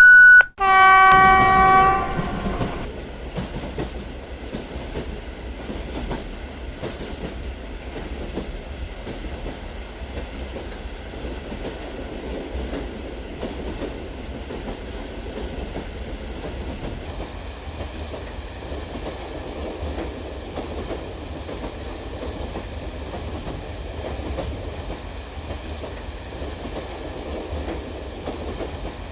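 Toy model train sounding its electronic horn: a short beep, then a horn tone held for about two seconds. After that, the toy train runs steadily along its track with a faint, regular clicking of wheels over the track joints.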